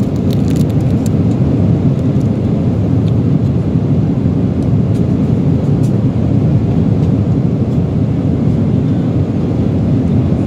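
Airliner cabin noise in flight: a steady low rush of engine and airflow. Faint crinkles of a plastic sauce packet being handled come through, mostly in the first second.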